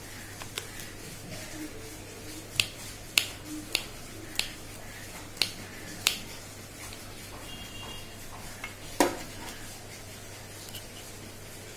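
Kitchen knife knocking on a stone countertop while garlic cloves are crushed under the blade: a run of sharp clicks, spaced roughly half a second to a second apart over the first six seconds, then one louder knock about nine seconds in. A steady low hum sits underneath.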